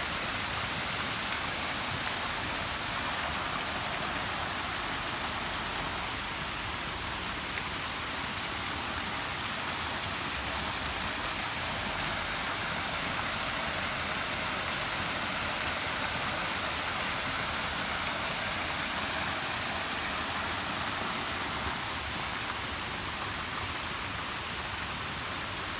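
Small waterfall pouring over a low rock ledge into a shallow pond: a steady rush of falling water.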